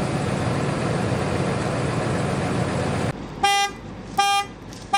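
A steady engine rumble cuts off about three seconds in. Then a car alarm sounds the horn in short, loud, evenly spaced honks, three of them about three-quarters of a second apart. The alarm is the crashed Mustang's.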